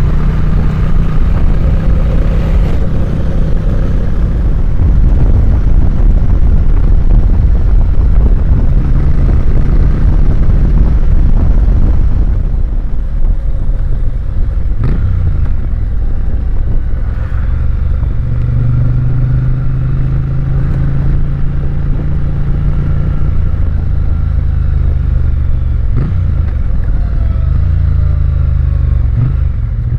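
Triumph Bonneville parallel-twin engine running under way, with heavy low wind rumble on the microphone. The engine note drops about halfway through, then runs steady again.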